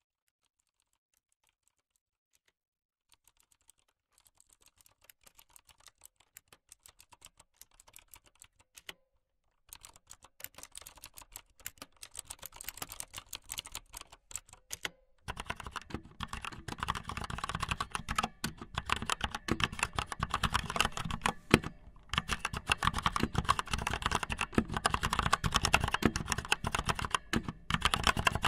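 Fast, dense clicking and tapping that fades in about three seconds in and gets louder in two sudden steps, near ten and fifteen seconds.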